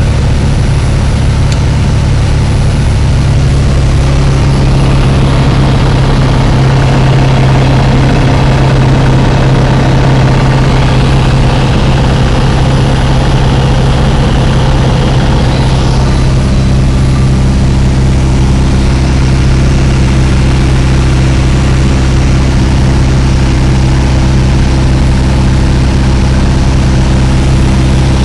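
Light aircraft's engine and propeller running steadily in flight, heard from inside the cockpit as a loud, even low hum with a hiss of engine and airflow noise over it; the higher hiss eases a little about halfway through.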